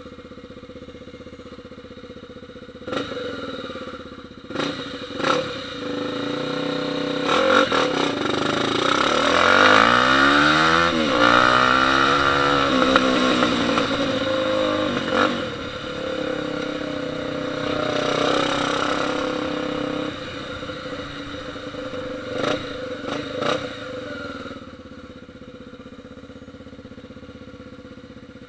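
Motorcycle engine revving, its pitch rising and falling and loudest in the middle, with several sharp cracks, most of them in the first few seconds. The sound dies down near the end.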